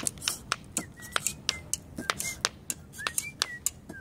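Sharp clicks of stones tapped by hand against a stone-paved floor, several players keeping overlapping rhythms at about four to five clicks a second. Short high squeaks come between the clicks.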